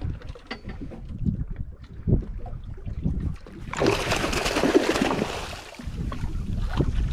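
A school of fish thrashing at the surface right beside the boat, churning the water into a loud splashing for about two seconds from around four seconds in. Before it, wind on the microphone and small knocks and water sounds.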